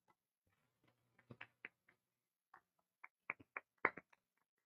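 A few people clapping their hands in faint, scattered applause, single claps starting about a second in and coming closer together near the end.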